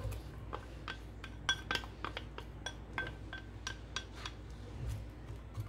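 A wooden spatula scraping and tapping chopped onions out of a small glass bowl into a pan of oil: a quick, quiet series of light clicks and glassy clinks.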